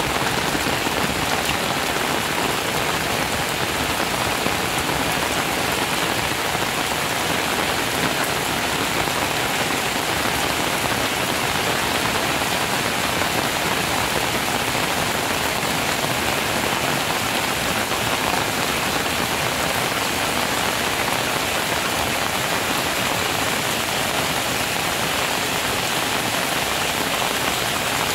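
Steady rain falling on leaves, bamboo and muddy ground.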